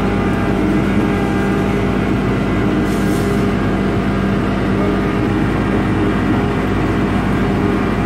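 Piling rig drilling with its auger: the rig's engine and drive run steadily as the auger turns down into the ground. There is a short hiss about three seconds in.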